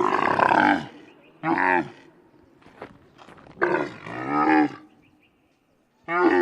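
Camel calling in a series of rough, pitched calls with short pauses between them, the longest about halfway through and another starting near the end.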